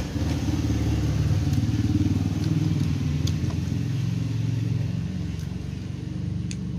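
An engine running with a low, steady rumble that swells about two seconds in and eases off, like a motorcycle ticking over or moving slowly nearby.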